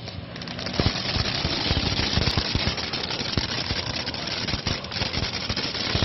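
Peacock firework fountain erupting: a steady rushing hiss of spraying sparks with rapid crackling pops all through it, building up in the first second.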